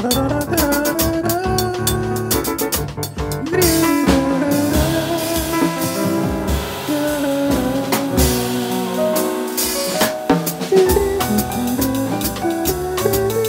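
Acoustic drum kit played along to a backing track: rapid snare, tom and cymbal strokes under a wavering melody line.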